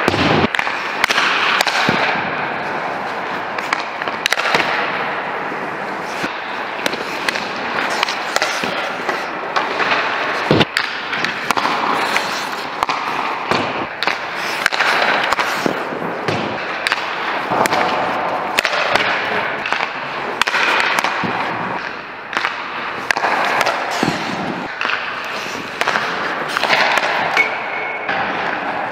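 Hockey sticks cracking against pucks as shots are fired at a goalie, pucks smacking off the goalie's pads, the net and the boards, with skate blades scraping the ice. Repeated sharp cracks, echoing in the rink.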